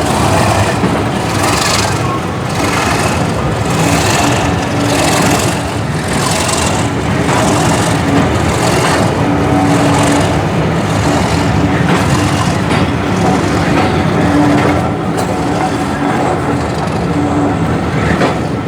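A train moving slowly past, with a hissing beat about once a second over a steady low hum. The beat fades out after about twelve seconds.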